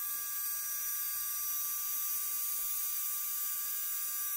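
Saeyang SH20N and SH37L micromotor handpieces running unloaded in reverse with a steady high whine, during the run-in of their freshly replaced bearings.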